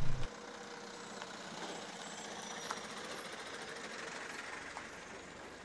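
Vehicles driving by on a dirt road: a light truck and a van with their engines running, over steady outdoor street noise.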